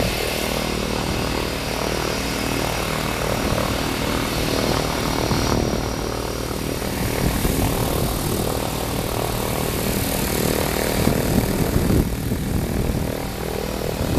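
Airbus A319 airliner's jet engines running at low power as it taxis, a steady rumble.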